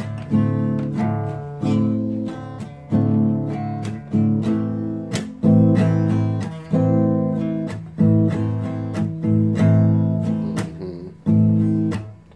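Guitar music: chords strummed in a steady rhythm, a fresh strum about every second, each ringing and fading before the next.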